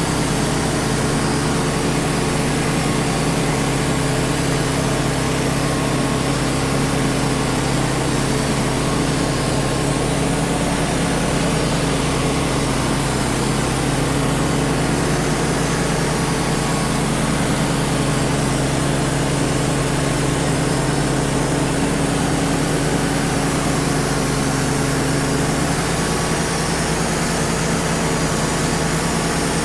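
Wood-Mizer LT35 portable sawmill running steadily, its engine humming with several steady tones, with the sawdust-collector blower running alongside.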